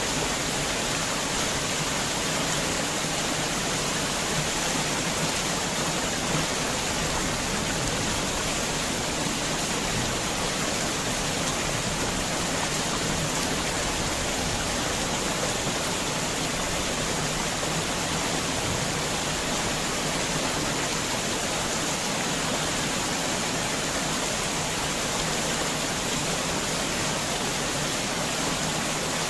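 Heavy rain falling steadily, an even hiss with no separate drops or thunder standing out.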